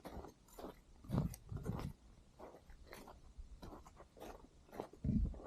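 Footsteps crunching in snow at a walking pace, a little under two steps a second.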